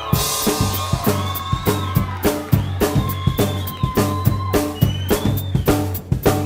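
Rockabilly band playing live: a fast, driving drum-kit beat with upright bass and electric guitar, starting abruptly all together.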